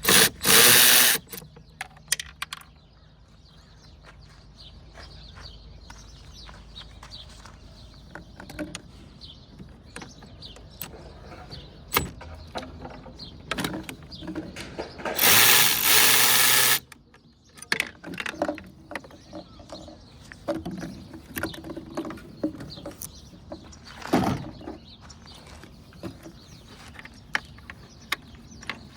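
Hand tools and small parts clicking and clattering while fuel lines are worked off a generator's carburetor. Two loud bursts of hiss, about a second long each, come at the start and about fifteen seconds in.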